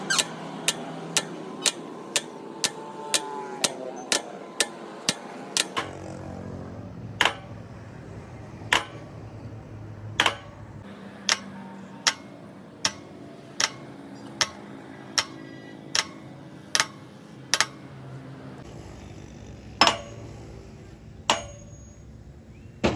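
Repeated sharp hammer blows, about two a second at first, then more spaced out and uneven, over a steady low background hum.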